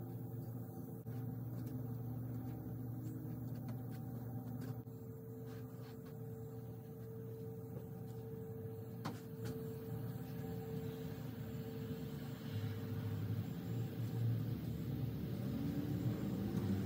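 A steady low mechanical hum, as of a small motor or fan running, with a single faint click about nine seconds in and a tone rising near the end.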